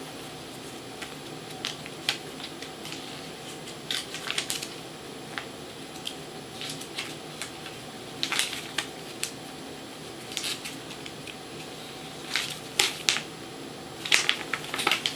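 Paper crackling and rustling in short irregular clicks as a paperback comic book is handled and its pages turned, over a steady low hum.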